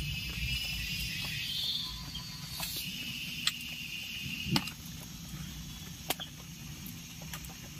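Insects trilling in the background, with a few sharp clicks scattered through.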